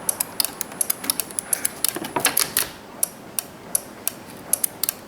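Rapid, irregular sharp clicking from the underhood fuse box of a Chevy Silverado as the key is turned to start. The starter relay is clicking, which shows its control circuit is good, yet the engine does not crank.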